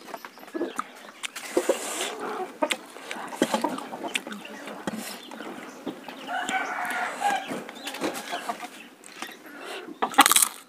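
Chickens clucking, with a rooster crowing once for over a second midway, over the small wet clicks of someone eating rice by hand. A sharp crunch near the end as a fried papad is bitten.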